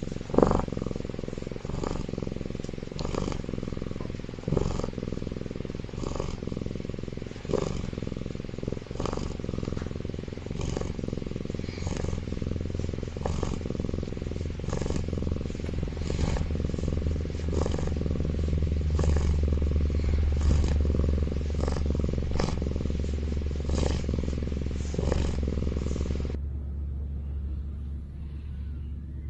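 Baby tiger cub snoring loudly in its sleep, a rasping snore about once a second, over a steady low hum. The snoring stops abruptly near the end, leaving only the hum.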